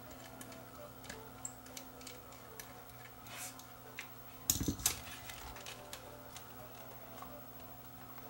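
Small scattered clicks and taps of a screwdriver, tiny screws and plastic parts as a Sony Digital 8 camcorder is taken apart, with a louder knock about four and a half seconds in. A faint steady hum runs underneath.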